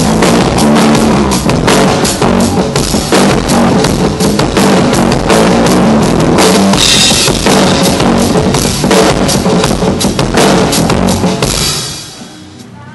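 Rock drum kit played hard during a band's sound check, with kick drum, snare and cymbals, stopping shortly before the end.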